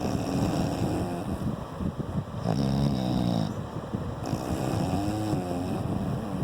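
A sleeper snoring: a loud snore about two and a half seconds in lasting about a second, a fainter one near the end, and heavy noisy breathing between them.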